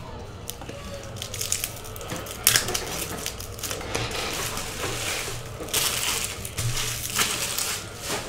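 Foil Panini Prizm trading card pack wrappers crinkling and crushing in irregular bursts as packs are opened by hand.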